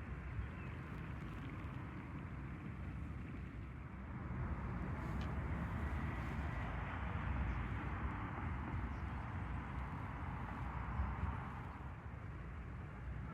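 Steady outdoor background noise: a low rumble with a hiss that swells for several seconds in the middle and then eases.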